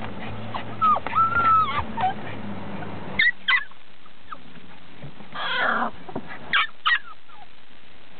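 American bulldog puppies whining and yipping: a drawn-out whine about a second in, then short high yips, two together about three seconds in and two more near seven seconds.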